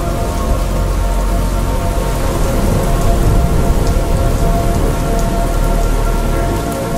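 Steady heavy rain sound effect with a deep rumble of thunder, laid over slowed, reverb-drenched music whose held chords sit beneath the rain.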